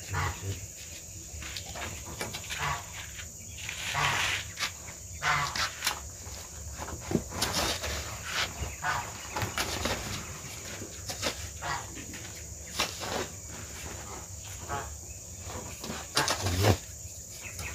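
Irregular scrapes and knocks of manual work with hand tools, over a steady high-pitched insect drone.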